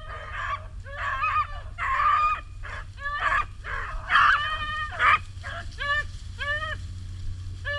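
Hunting dogs baying on a rabbit chase, several dogs giving short, pitched, overlapping calls, then a few separate barks near the end.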